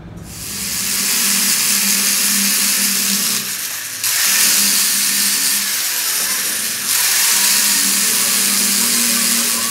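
Angle grinder grinding a steel pinion shaft: a steady motor hum under a loud high hiss from the disc on the metal. It builds up over the first second and eases briefly about three and a half seconds in and again near seven seconds.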